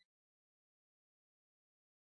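Complete silence: the sound track drops out entirely.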